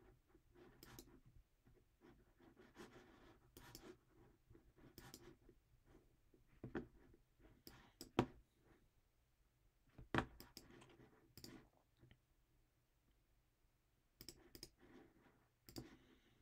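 Faint, irregular clicks from computer use, mouse and keyboard, coming in small clusters with pauses between, the loudest about eight and ten seconds in.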